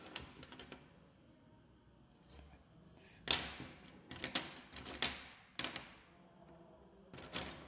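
Coloured pencils clicking and rattling as another colour is picked out: a sharp click about three seconds in, then a few short clatters and knocks.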